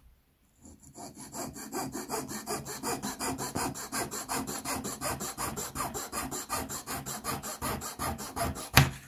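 Fine-toothed razor saw cutting through a wooden mast dowel held in a small mitre jig, in rapid, even strokes of about seven a second. A single sharp knock comes near the end.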